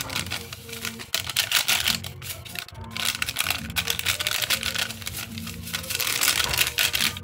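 A paper-and-foil gelatin packet crinkling and rattling in quick rapid ticks as it is shaken to empty out the powder, over soft background music.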